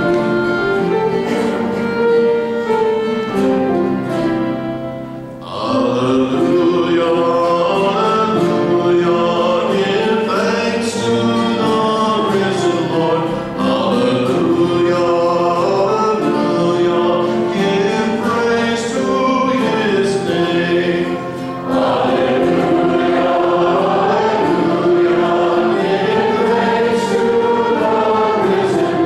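Church music with an instrumental introduction of held notes; about five seconds in, voices enter, singing with the accompaniment. It is the sung acclamation that follows the second reading at Mass.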